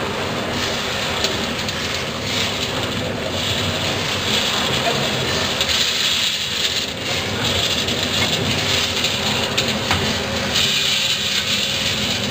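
Coffee roasting machine running: its paddle sweeps the beans around the stainless steel pan, a steady rattling hiss of beans over a machine hum, as the batch pours out into the cooling tray.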